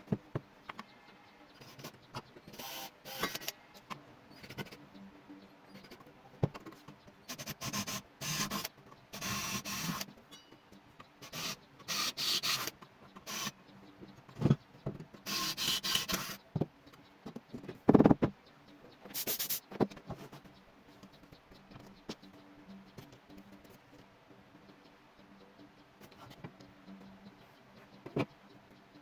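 Hand work on workshop materials: intermittent rubbing and scraping strokes, each lasting about half a second to a second, with a few sharp knocks, the loudest about eighteen seconds in. No motor is running.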